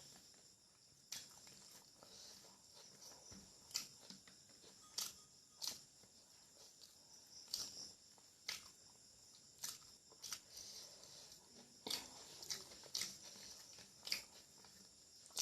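Close-up chewing and mouth smacking of someone eating curry and rice: sharp, irregular wet clicks, roughly one a second, over a faint steady high hiss.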